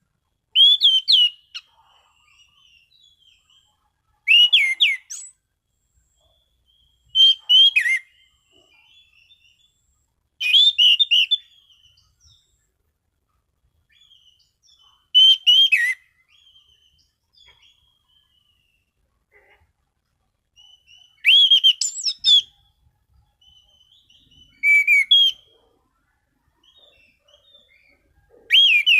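An anis cendana (orange-sided thrush) singing in full, clear voice. It gives a string of short, loud whistled phrases about every three seconds, with soft quiet twittering in the gaps.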